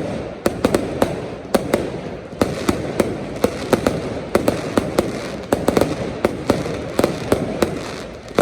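Fireworks display: a rapid, irregular run of sharp bangs and crackles, several a second, over a steady low rumble.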